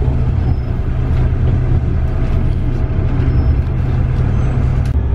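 Motor vehicle engine running with a steady low hum amid city street traffic, cut by a sharp click near the end.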